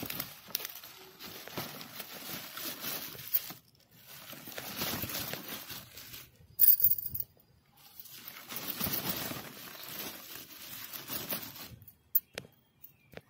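Radish leaves rustling and soil crumbling and scraping as fingers dig around radish roots in a pot, in several stretches broken by short silences, with one sharp knock about six and a half seconds in.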